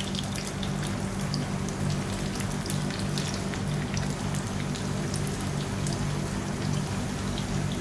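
Sliced shallots sizzling and crackling in hot coconut oil in a small tempering pan, a dense steady hiss full of tiny pops. A steady low hum runs underneath.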